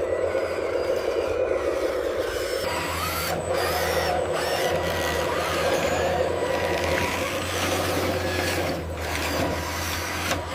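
RC construction machine running steadily: a constant low hum under a thin high-pitched motor whine, the tone shifting slightly about three seconds in.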